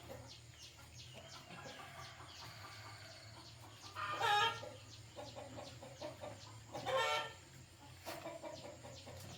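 Chickens clucking and calling, with two louder squawking calls about four and seven seconds in.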